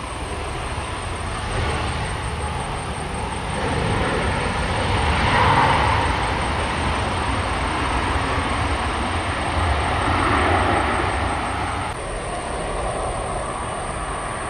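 Airbus A320-200 jet engines running as the airliner rolls down the runway after landing, a steady rumble and rush that swells about five seconds in and again near ten seconds. About twelve seconds in it cuts to the quieter engine sound of a Boeing 737-800 on the runway.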